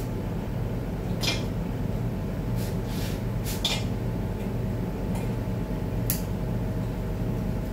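Light clicks and taps of small metal parts being handled and fitted into an automatic transmission valve body, a handful scattered over several seconds, over a steady low background hum.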